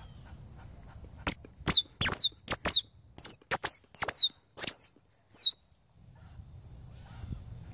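A squirrel call sounding a rapid run of about a dozen sharp chirps, each falling quickly in pitch, in imitation of grey squirrel barking to draw squirrels in. The chirps start about a second in and stop about two seconds before the end.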